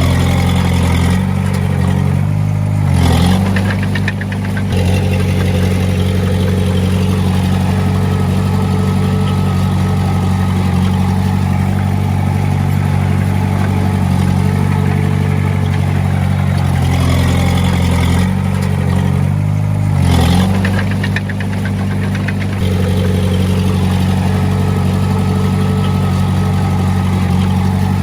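Heavy-equipment diesel engine running steadily. Its pitch shifts twice, about three seconds in and again about twenty seconds in, as it revs up and then settles.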